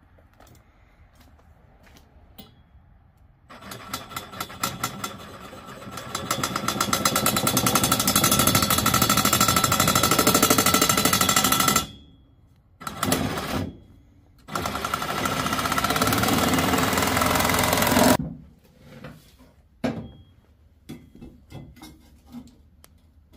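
Cordless angle grinder cutting through steel tube: a steady loud run with a whine, a sudden stop, a short burst, then a second run of about four seconds. Quiet knocks of tube handling follow.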